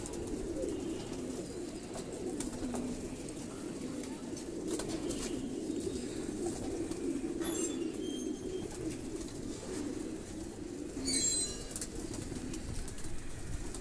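Racing pigeons cooing continuously in a low register, with a brief higher-pitched sound about eleven seconds in.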